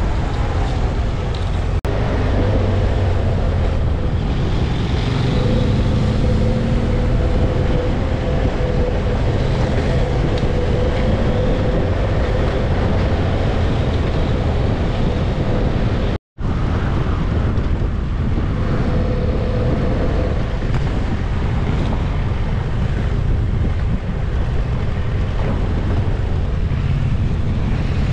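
Wind rushing over a helmet-mounted microphone while riding a motorcycle, with the bike's engine humming steadily and tyre and road noise underneath. The sound cuts out for an instant about sixteen seconds in.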